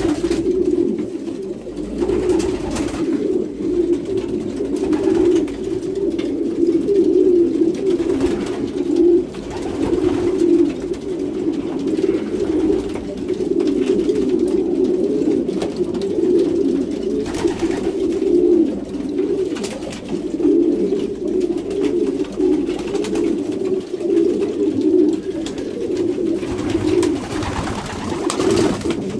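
A loft full of domestic racing pigeons cooing continuously, many birds overlapping into a steady low burbling chorus, typical of males courting during pairing season. Now and then a short flurry of wing flapping.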